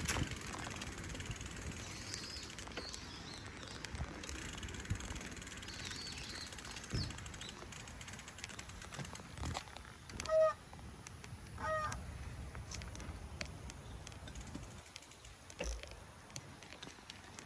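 Bicycle rolling along a path: steady tyre and path noise with small rattles and clicks. Just after ten seconds in come two short honks about a second and a half apart.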